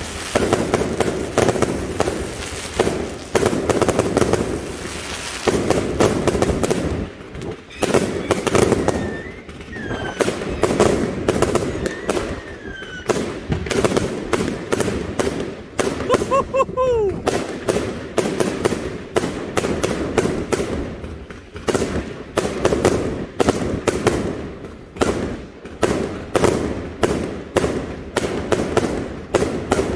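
Fireworks going off in rapid succession: a dense, continuous run of bangs and crackling bursts from shots fired overhead. A few whistling tones glide through about a third and halfway in.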